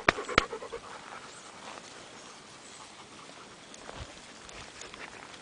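A dog panting and moving about close by, with two sharp clicks in the first half second and a soft thump about four seconds in.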